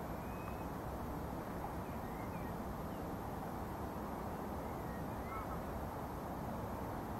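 Steady low outdoor rushing noise, with a few faint, short bird calls now and then.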